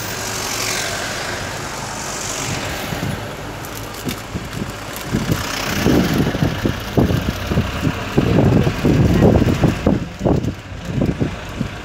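Running noise of a Darjeeling Himalayan Railway narrow-gauge train heard from on board, a steady rush at first, then irregular low thumps and surges from about five seconds in.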